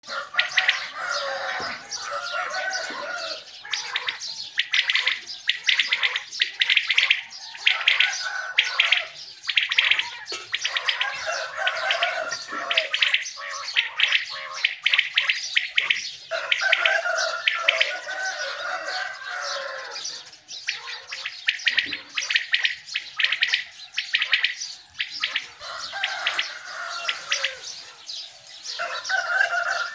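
Caged caller quails calling over and over, several birds overlapping in quick runs of short, clipped notes, used as decoys to draw wild quail in for the hunt. Lower, more drawn-out bird notes run underneath.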